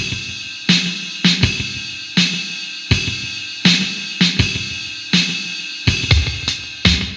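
Electronic drum-kit sounds from an M-Vave Lost Tempo playing a beat: bass drum and snare strikes about every two-thirds of a second under ringing cymbals.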